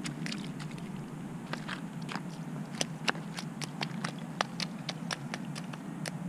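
Raindrops ticking irregularly on an umbrella, a few sharp taps a second, over a steady low rumble.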